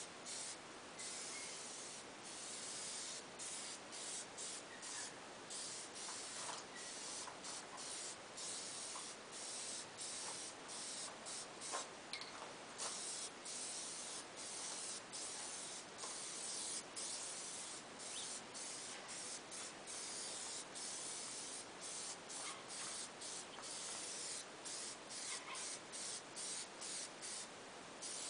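Aerosol spray can of peelable liquid wrap hissing in short repeated passes, cut off briefly many times as the nozzle is released between strokes. This is the first coat going onto a motorcycle fuel tank.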